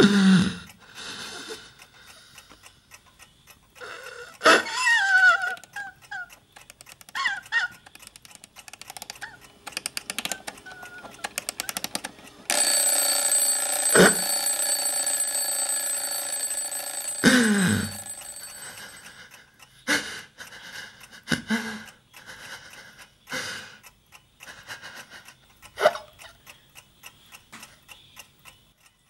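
Table alarm clock ticking steadily, its bell ringing continuously for about six seconds midway. Around it are a few short cries and sobs.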